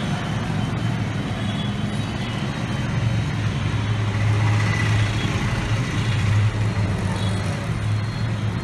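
A steady low mechanical hum under a constant background rush of noise, with no breaks or sudden sounds.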